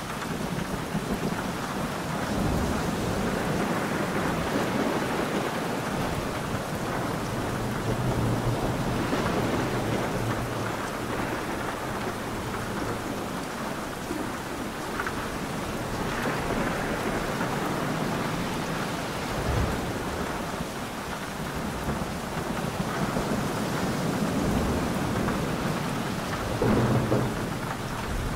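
Thunderstorm: rain falling steadily, with thunder rumbling low and rolling in several swells that rise and fade.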